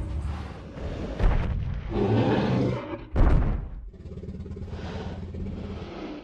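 Dramatic sound effects over a low musical drone: sudden booming hits about one and three seconds in, between rumbling swells.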